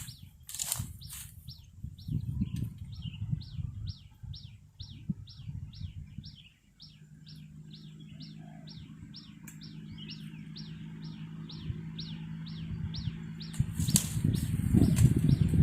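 A trapped wild bird struggling, its wings flapping in bursts near the start and again near the end. Between the bursts, a long, even series of short, falling chirps comes about three times a second. A low, steady hum is heard from about halfway through.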